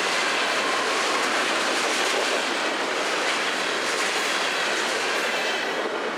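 Florida East Coast Railway freight cars rolling past: a steady rumble of steel wheels on rail with clickety-clack over the joints, easing off slightly near the end.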